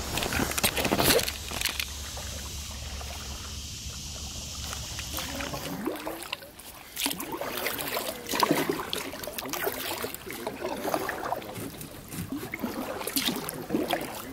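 Kayak paddling: the paddle dipping and splashing, with water dripping and trickling between strokes. For the first six seconds a steady low rumble of wind or handling on the microphone lies under it, then stops abruptly.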